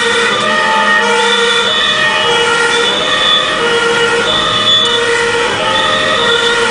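German fire engine two-tone siren (Martinshorn) sounding on an emergency run, heard from inside a fire engine's cab. It switches between a high note and a low note about every three-quarters of a second.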